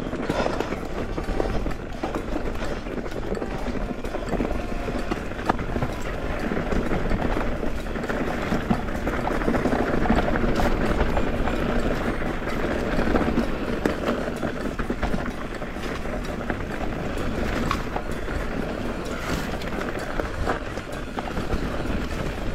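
Rocky Mountain Instinct full-suspension mountain bike riding over rocky, rough singletrack: tyres crunching and rumbling on stones and dirt, with the bike rattling and clattering and scattered sharp knocks from rocks.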